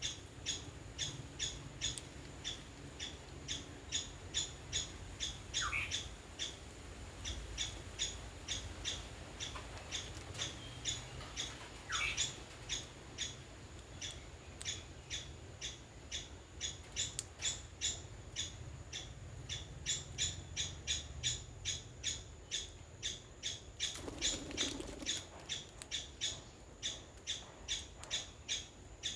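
Birds calling: a steady series of short, sharp, high calls at about two a second, with two longer falling calls early on and a low background rumble.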